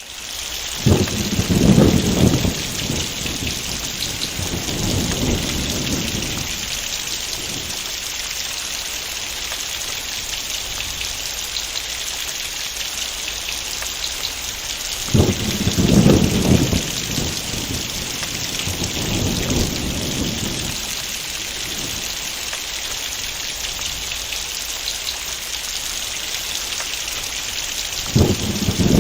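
Heavy rain falling steadily, with rolling thunder three times: a crack about a second in that rumbles on for several seconds, another about fifteen seconds in, and a third starting near the end.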